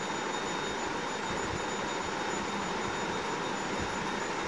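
Vegetables and chicken sizzling steadily as they stir-fry over high flame in a wok, with a faint high steady whine behind.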